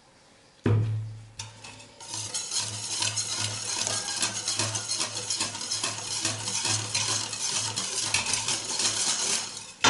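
Wire whisk stirring a freshly combined oil and lye solution in a stainless steel bowl for cold process soap: a fast, steady scraping and clinking of the wires against the metal from about two seconds in. A single knock under a second in, and a sharp clang that rings on at the very end.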